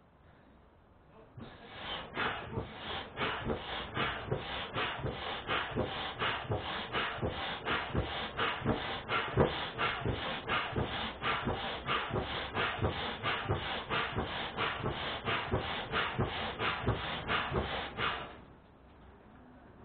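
An air pump worked by hand or foot, pushing rhythmic puffs of air at about three strokes a second. It starts about a second and a half in and stops shortly before the end.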